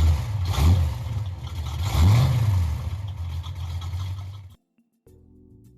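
A car engine running and revved twice, about half a second and two seconds in, then cut off abruptly after about four and a half seconds. Soft music begins just before the end.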